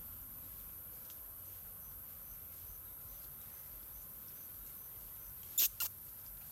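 Steady high-pitched insect drone with a faint chirp repeating about three times a second, and two sharp clicks close together near the end.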